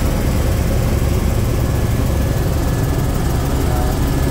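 Steady in-flight cabin noise of an Airbus H125 (AS350 B3 Ecureuil) single-turbine helicopter: a dense low drone from the main rotor and Arriel 2B turbine. A faint steady high whine sits over it from about halfway in.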